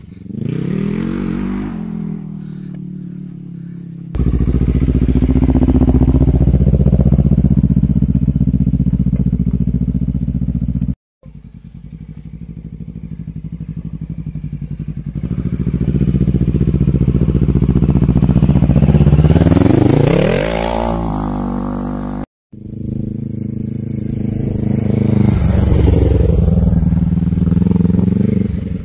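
Quad (ATV) engine running under way, revving up and easing off with its pitch rising and falling, including a long climbing rev near the middle. The sound jumps louder about four seconds in and drops out abruptly for a moment twice.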